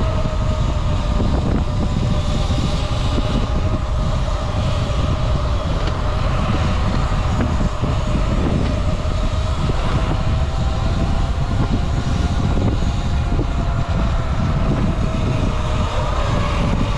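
Wind rumbling on the microphone while riding, over the steady whine of an electric motor that drifts slowly up and down in pitch.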